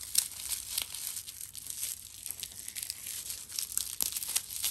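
Packaging being crinkled and torn open by hand: a continuous crackling with many sharp crinkles.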